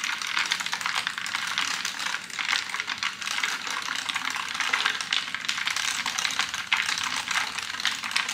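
A metal spoon stirring juice and ice in an insulated Thermos tumbler: quick, continuous clinking and rattling of ice and spoon against the cup.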